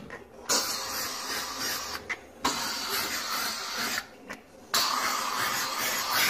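McCulloch MC1385 canister steam cleaner hissing out of a round brush nozzle scrubbed over a gas stove burner. The steam comes in three bursts of one to two seconds, with short breaks between them.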